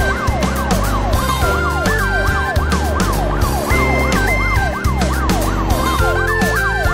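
Police siren wailing in a fast up-and-down sweep, a few times a second, over background music with a steady bass beat and a high melody line.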